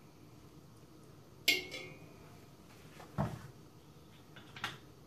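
A steel spoon clinking against an aluminium cooking pot of water three times, the first strike loudest with a short metallic ring.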